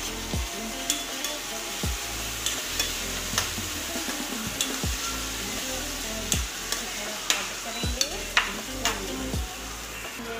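A steel spoon scraping and knocking in a stainless steel pan while chopped tomatoes and masala fry and sizzle, with repeated sharp metal clicks about once a second.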